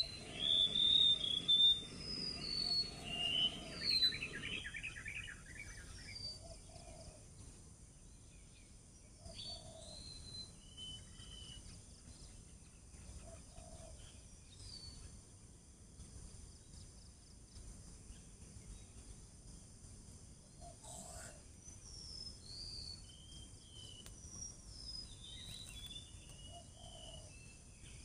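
Black-naped oriole calling: a burst of loud, overlapping calls and a buzzy run of notes in the first few seconds, then short single calls every few seconds. A steady high insect drone runs underneath.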